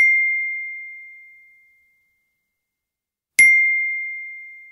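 Two identical bell-like dings, about three and a half seconds apart, each a single clear high note struck once and fading away over about two seconds.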